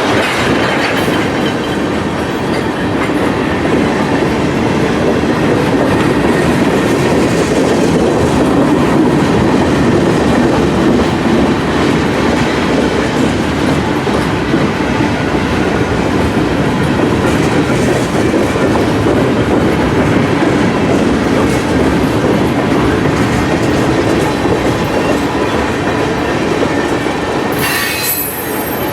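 A train rolling past close by: a steady, loud rumble of rail cars on the track with wheel clatter and a faint wheel squeal.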